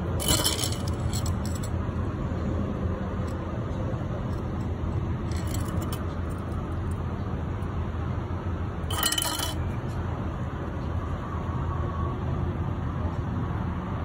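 Steady low background rumble with a few brief metallic clinks, about half a second in, around five and a half seconds, and around nine seconds.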